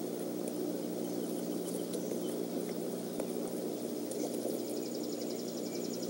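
Steady outdoor background noise picked up by an eagle nest-camera microphone, with a low steady hum under it. About four seconds in, a rapid, high-pitched trill starts and carries on.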